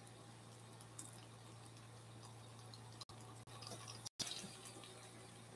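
Faint dripping and trickling of urine pushed from a plastic syringe into a plastic specimen cup, filling a urine culture sample, a little more audible about three and a half to four and a half seconds in.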